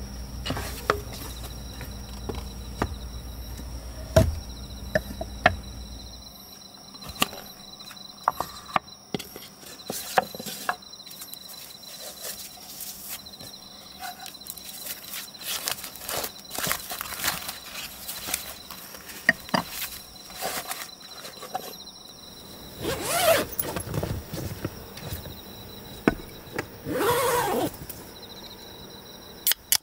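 Wooden boards and small objects being handled and set down on a wooden table: scattered light knocks and clicks, with two louder bursts of paper or cloth rustling near the end. Crickets chirp steadily in the background, and a low hum stops a few seconds in.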